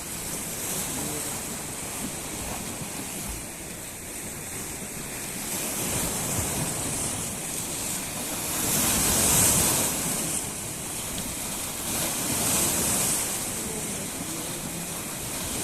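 Sea waves washing onto the shore, in two louder swells: the biggest about nine seconds in, another around twelve seconds.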